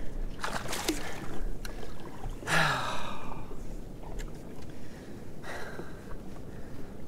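Water sloshing against a jet ski on open sea, with a few short handling noises and a sharp breath about two and a half seconds in.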